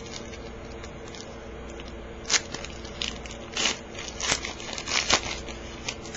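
A football trading-card pack wrapper crinkling and tearing as it is opened, in several short crackles.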